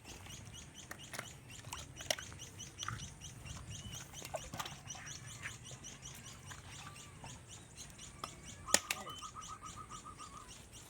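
Birds chirping outdoors, with quick high chirps repeating several times a second, a few sharp clicks scattered through, and a fast trill on one note starting just under nine seconds in.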